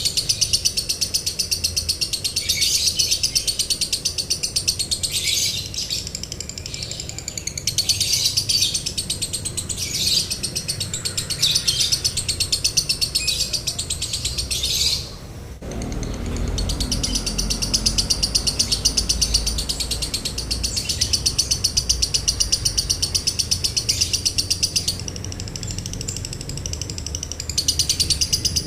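Lovebird chattering in a long, nearly unbroken run of rapid, high-pitched chirps: the continuous 'konslet' (short-circuit) style of song, with a brief break about halfway through.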